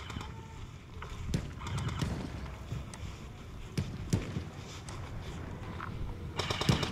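Footsteps with scattered knocks and clicks, and a quick rattle of clicks near the end.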